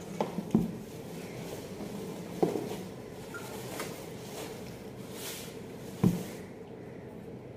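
Handling an iron kadhai packed in a cardboard shipping box: paper packing rustles, and a few sharp knocks sound as the pan and box are moved, with a louder knock near the end.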